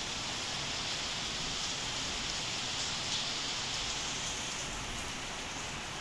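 Steady rain falling on a concrete courtyard and tree leaves: an even hiss with faint scattered drop ticks.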